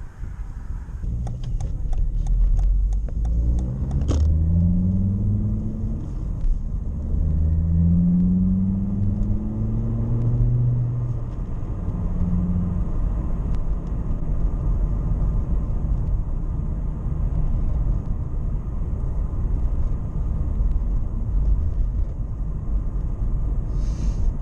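Volvo V70 2.4 D5 five-cylinder turbodiesel heard through a custom stainless steel exhaust. A rapid chattering flutter of clicks runs for a few seconds, then the engine revs up in several rising pulls and settles into a steady low rumble.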